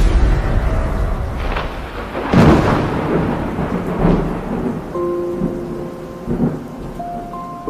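Thunderstorm sound effect: rolling thunder with several claps and a wash of rain. Soft held music notes come in about five seconds in.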